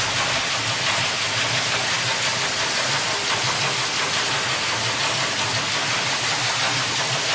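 Underwater recording of shipping noise: a steady rushing hiss over a low hum from ship engines and propellers, starting abruptly.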